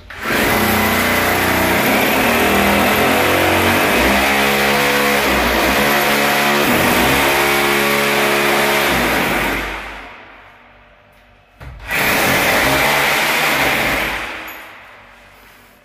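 Electric hammer drill boring holes into a wall for wall plugs: one long run of about nine seconds that winds down, then a second shorter run of about two seconds that also winds down.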